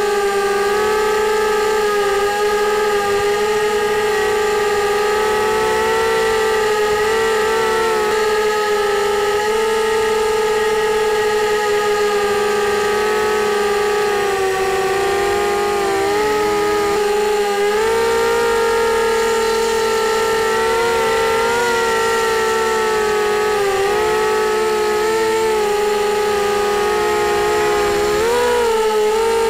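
Brushless motors and propellers of a QAV250 FPV quadcopter in flight, heard from its onboard camera as a steady high whine. The pitch wavers up and down with throttle, dipping about halfway through and rising sharply near the end.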